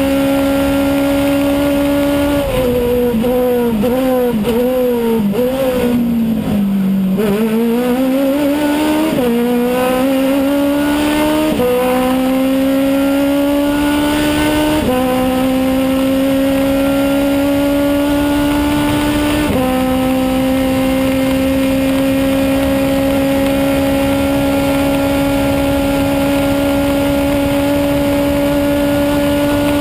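Race car engine heard from inside the cockpit of an Aussie Racing Car, pushed hard at high revs. A few seconds in the pitch wavers and falls as the car brakes and shifts down for a corner, bottoming out at about seven seconds. It then climbs back through four upshifts, each one a sudden drop in pitch, and holds steady at high revs on the straight.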